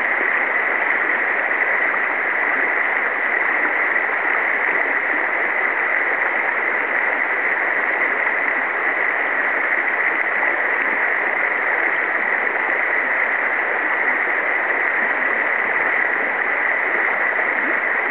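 Steady rushing of the Clinch River's current flowing over a shallow riffle, an even unbroken hiss of moving water.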